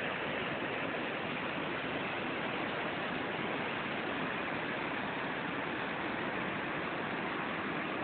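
Waterfall's white water pouring over rocks: a steady rushing noise.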